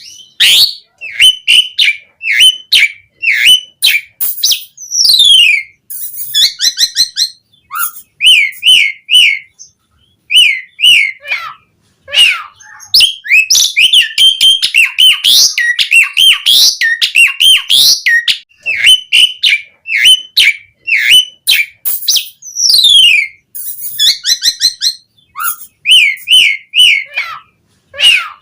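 Asian pied starling (jalak suren) singing loudly and without a break: a varied string of short whistled notes, falling whistles and quick chattering runs, the full mixed song that is used to coax other starlings into song.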